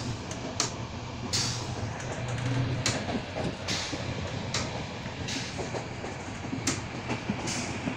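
Inside a moving passenger train: the steady rumble of the carriage running on the track with a low hum underneath, broken by brief clacks every second or so.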